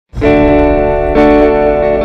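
Intro music: sustained guitar chords, changing chord about a second in.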